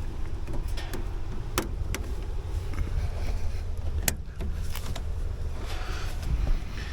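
Hand-tool work on a stripped lug: several sharp clicks and knocks over a low steady rumble.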